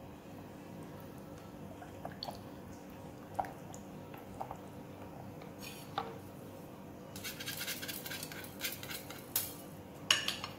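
Kitchen utensils stirring a thin rice-flour batter in a glass bowl. A spatula scrapes with a few light taps against the glass, then a wire hand whisk beats quickly against the bowl for a couple of seconds near the end, with a sharp clink.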